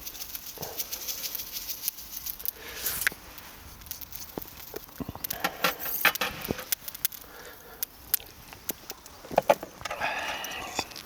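People eating at a table: chewing, with many sharp, irregular clicks of utensils against dishes.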